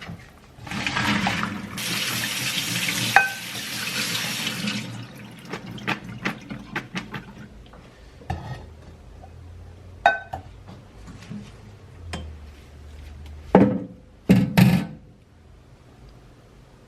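Water running briefly, a rushing splash for about four seconds, followed by scattered light clinks and knocks and two louder thumps near the end.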